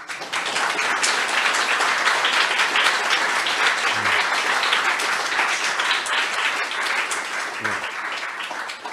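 Audience applauding, starting suddenly and dying away near the end.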